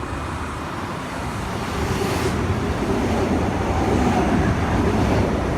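Sydney Trains OSCAR (H set) double-deck electric train passing through the station: a steady rumble of wheels and running gear that grows gradually louder, with a humming tone joining about two seconds in.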